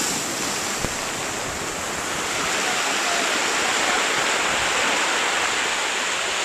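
Steady rushing of falling water from a waterfall or cascade into a rock pool, an even hiss that swells slightly about two seconds in.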